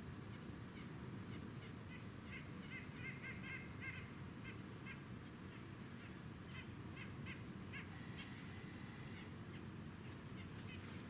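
Distant birds calling in runs of short, quick honk-like notes, thickest about two to four seconds in, with one longer held note later. Under them is a faint low steady rumble.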